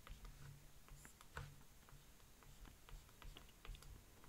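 Near silence with faint, irregular clicks and taps of a stylus writing on a tablet screen, one a little louder about a second and a half in.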